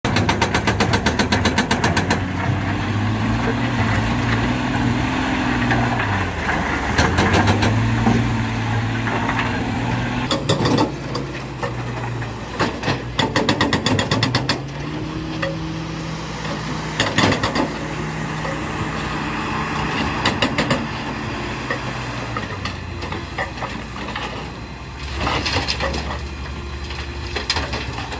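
Excavator-mounted hydraulic breaker hammering rock in several bursts of rapid blows. Under it the diesel engines of the excavator and a wheel loader run, their pitch rising and falling as they work.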